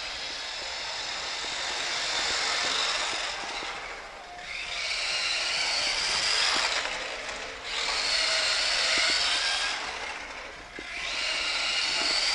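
Electric motor of a Tamiya M-03 Mini radio-controlled car whining at high pitch as it drives fast. The whine drops away three times, about four, seven and a half and eleven seconds in, as the car eases off, and then rises again.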